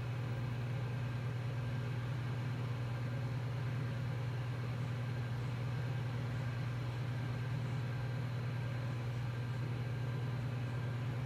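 IBM 5160 PC XT running: a steady low hum and fan whir from its power supply fan and spinning hard drive, with a faint even hiss.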